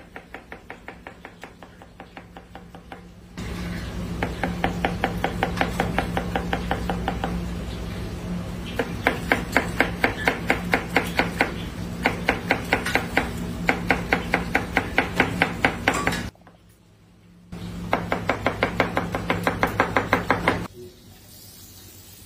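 Kitchen knife rapidly slicing onion and red and green peppers on a plastic cutting board: a quick, even run of knife strikes, about four a second, in several stretches, stopping near the end.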